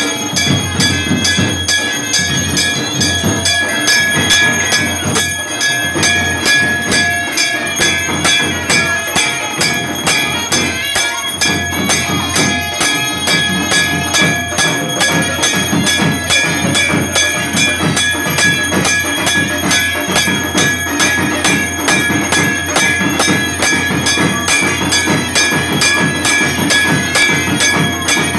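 Puja bells ringing rapidly and without pause: a continuous metallic clanging of several strikes a second, with a beat underneath.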